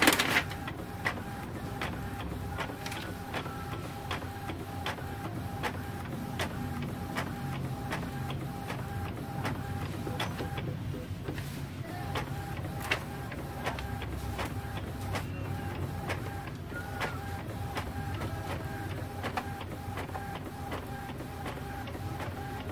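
Epson L360 inkjet printer running a print job: the carriage motor whines steadily while the head shuttles, with regular clicks from the feed mechanism and a brief pause about ten seconds in. The printer has a fault of pulling in several sheets at once.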